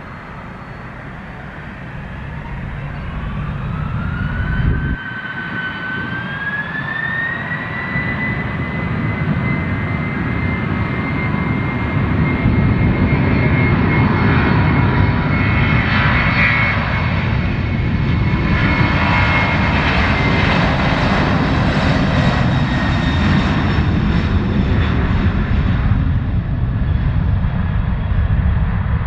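Jet airliner engines spooling up: a whine rises in pitch over the first eight seconds, then holds steady while the engine noise grows louder and stays loud.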